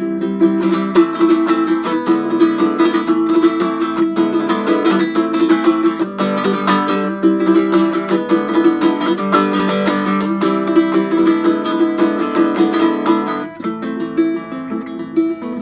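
Pinol solid-wood baritone ukulele played solo at a quick pace: a busy run of plucked notes and strums, with a brief let-up near the end.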